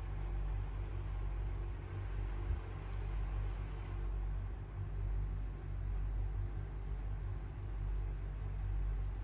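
A mother cat purring while nursing her newborn kittens: a continuous low rumble that swells and eases with her breathing.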